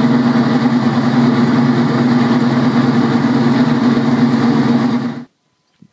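Jaguar racing car's V12 engine running steadily at idle, then switched off a little after five seconds in, the sound cutting out abruptly.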